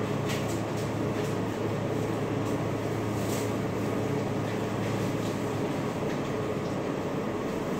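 Steady hum of a rolled ice cream machine's refrigeration compressor and fan running. Light crinkles and snips of a plastic marshmallow bag being cut open with scissors and shaken come in the first second or so and again about three seconds in.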